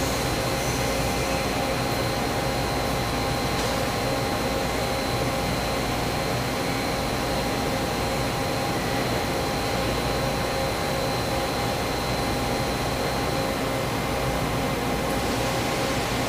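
Eimeldingen 40-inch vertical CNC rotary table turning under power: a steady machine hum with several steady whining tones. The highest whine drops out near the end.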